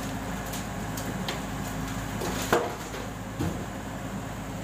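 Komatsu PC78US mini excavator's diesel engine running steadily, with a loud thud about two and a half seconds in and a smaller one about a second later as the bucket dumps soil into the dump truck's steel bed.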